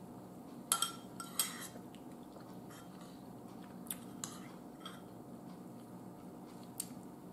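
A metal spoon clinking and scraping lightly against a ceramic bowl of chili: a scattering of short, soft clicks, the loudest cluster about a second in, then a few more spread through the rest.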